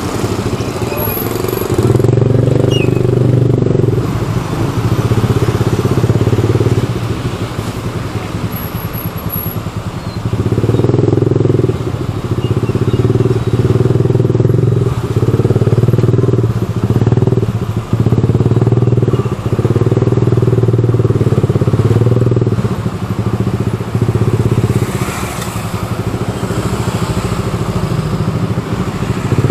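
Motorcycle engine running at low speed, the throttle opened and eased off every few seconds.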